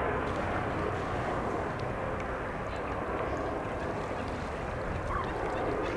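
Twin-turbine Airbus H135 helicopter flying away in the distance: a steady rumble of rotor and engine noise that slowly fades.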